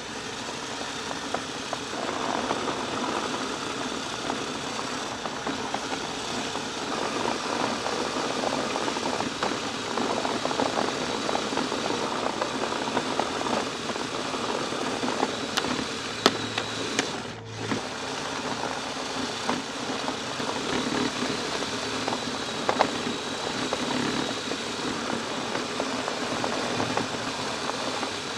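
Kyosho Blizzard RC snowcat running steadily, its electric drive motor and tracks churning as it pushes snow, heard close through its own onboard microphone. A few sharp knocks come about halfway through.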